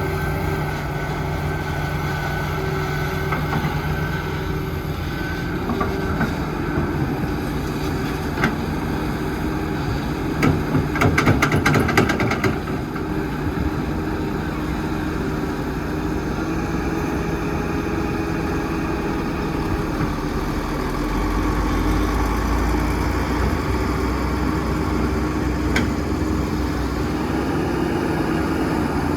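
Heavy diesel construction machinery running steadily, with a burst of clanking and rattling about eleven seconds in and the engine note getting deeper and louder about two-thirds of the way through.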